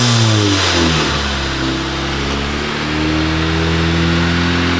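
Car engine running at raised revs: the pitch shifts about a second in, then holds a steady drone that slowly creeps higher.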